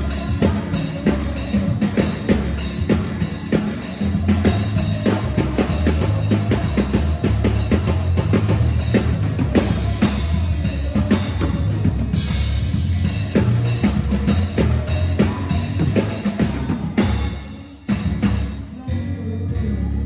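Music led by a drum kit: fast, busy drum strokes over a steady bass line. It drops out briefly near the end, then a last held note.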